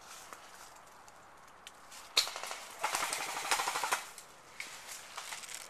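Airsoft electric rifle firing: a single sharp snap about two seconds in, then a rapid full-auto burst of about a second.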